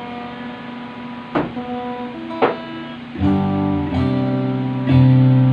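Stratocaster-style electric guitar playing single ringing notes, with two sharp picked attacks, then strummed chords from about three seconds in, the loudest chord near the end.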